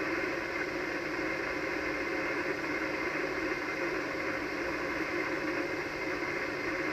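Steady static hiss from an Icom HF transceiver's speaker, receiving single-sideband on the 80-metre band with no station transmitting: open band noise between stations' turns.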